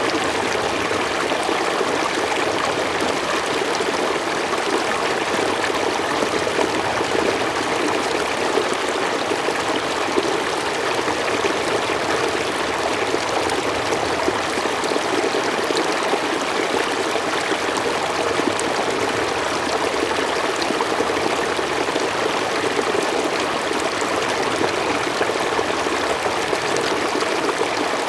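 Mountain stream flowing steadily over rocks, a continuous rushing babble with no breaks.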